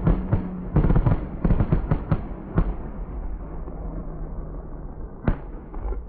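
Fireworks going off: a quick string of sharp bangs and crackles over the first two and a half seconds, then one more single bang about five seconds in.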